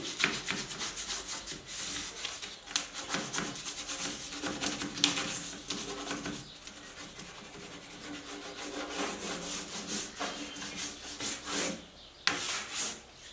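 Sandpaper rubbed by hand over the sealed wooden side of a cabinet in short, uneven back-and-forth strokes, sanding down the dried sealer coat. The strokes ease off through the middle and pause briefly near the end before a few more.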